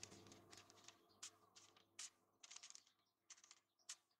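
Faint, crisp rasps of a sharp steel knife blade slicing through a sheet of paper, a string of short irregular cuts.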